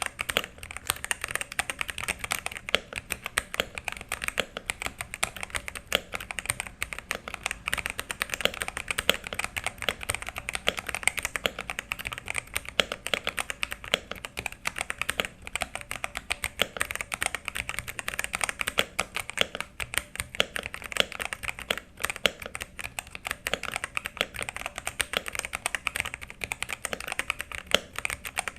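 Fast continuous typing on a modded Xinmeng X87 mechanical keyboard with Thunderobot brown tactile switches, a dense stream of key clacks.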